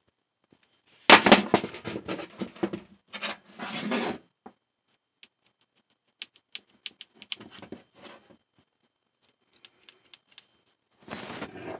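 Handling noise from a rubber hose with brass fittings being turned in the hand: rubbing and scraping, loudest between about one and four seconds in, then scattered light clicks, with another short rub near the end.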